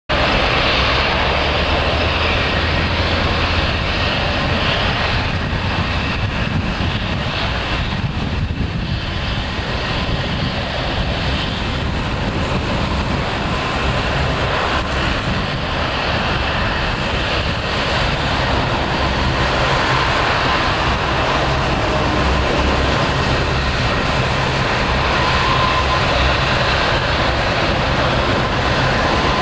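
Lockheed CP-140 Aurora's four Allison T56 turboprop engines running at taxi power: a steady propeller drone with a turbine whine. The whine grows a little stronger in the second half.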